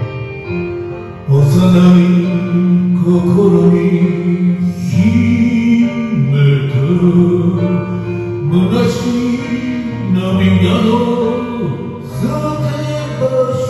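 Karaoke backing music, an instrumental passage between sung lines of the song, with the band entering fuller about a second in.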